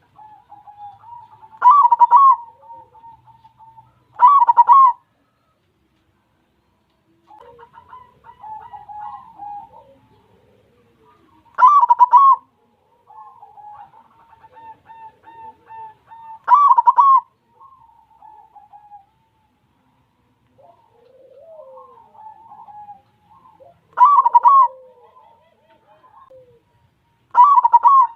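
White zebra dove (perkutut) cooing in its rapid staccato song. Loud short phrases come about six times, with softer runs of quick coos between them.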